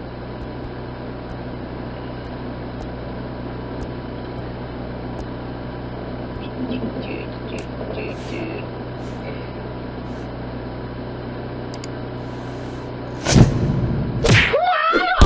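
A steady low hum with hiss and a few faint clicks. About 13 seconds in comes a sudden loud burst of sound, followed by more loud, pitch-bending sound near the end.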